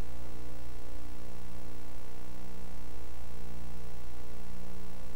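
Steady electrical mains hum with a faint even hiss, unchanging throughout.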